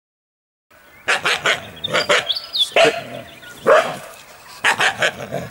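A trapped wild dog, held by a back foot in a walk-through trap set, barking aggressively. The sharp barks come in short bursts of two or three, starting about a second in.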